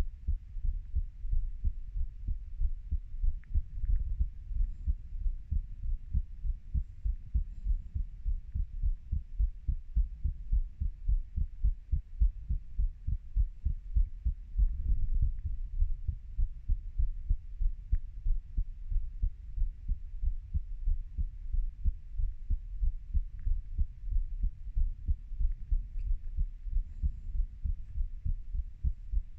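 A human heartbeat, the uploader's own, beating in a steady, even rhythm of low beats.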